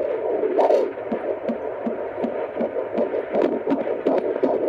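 Fetal heartbeat through a Doppler monitor's speaker: a fast, regular whooshing pulse, nearly three beats a second, over a steady hiss. The beats come through clearly from about a second in.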